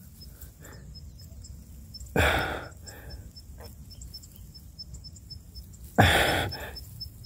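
Faint insect chirping in an even high pulse about four times a second, broken twice by sudden loud rushes of noise about two and six seconds in that fade away over a second or so.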